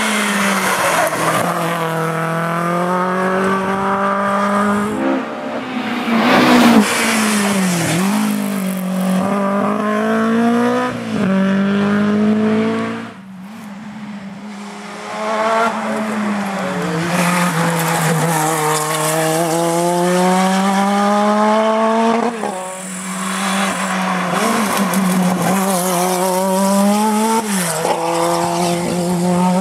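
Historic rally cars, among them a Ford Escort Mk2 and a Renault 5 Turbo, driven hard one after another: each engine revs up for a few seconds, then its pitch drops sharply at a gear change or lift, again and again. A brief lull comes about halfway through.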